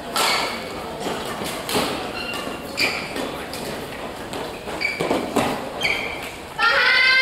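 Echoing badminton-hall sounds: scattered sharp racket hits and thuds with brief shoe squeaks on the court floor. About six and a half seconds in, a high voice starts a long drawn-out shout.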